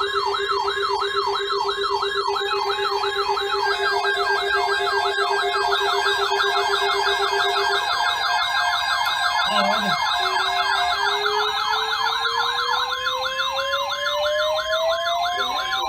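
Several siren tones sounding at once: a fast yelp sweeping up and down throughout, over a steady pulsing low tone that stops about halfway. About two-thirds of the way in, a wail begins rising slowly in pitch.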